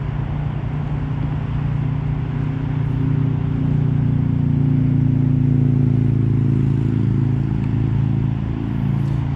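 A motor vehicle's engine hum: a steady low drone that builds to its loudest around the middle and eases off near the end.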